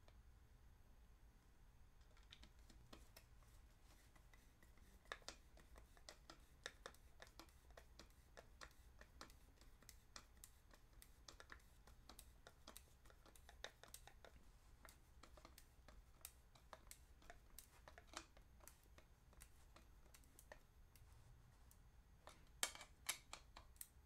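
Faint, irregular small clicks and scrapes of a hand screwdriver turning a screw into a 3D-printed plastic part, a little busier near the end.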